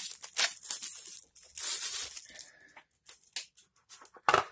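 Clear plastic packaging bag rustling and crinkling as a sheathed fixed-blade knife is worked out of it, in two long stretches. A few light clicks follow, and a sharper knock near the end.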